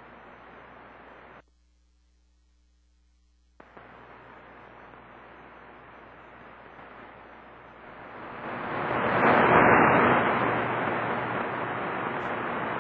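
Static hiss from a Yaesu FT-950 transceiver's receiver on the 27 MHz CB band. It drops out for about two seconds near the start, then swells loud about eight seconds in and holds.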